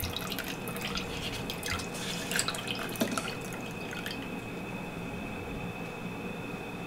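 Dashi stock dribbling and dripping from a tilted pot through a paper-towel-lined colander into a bowl, as the stock is strained. The drips fall irregularly for about four seconds and then die away.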